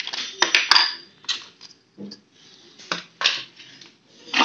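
Household items being moved and set down: a run of irregular knocks and clinks, some with a short metallic ring, like pots and utensils being handled.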